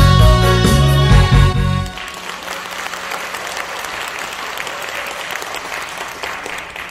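The song's accompaniment plays its last loud chords and stops abruptly about two seconds in. The audience then applauds, and the clapping fades near the end.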